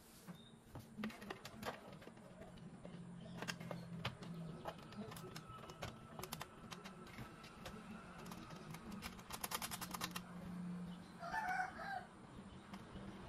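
Light clicks and rustling of wires being handled and tugged inside an open metal amplifier chassis, with a quick run of clicks about nine seconds in. Near the end, a short bird call, about a second long, is the loudest sound.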